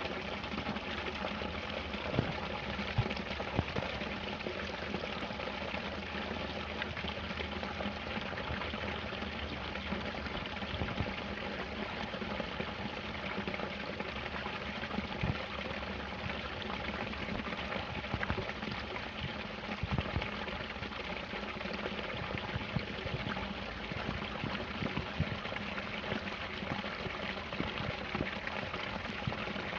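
Small waterfall splashing and pouring steadily, with many little splashes and drips over the continuous rush of water.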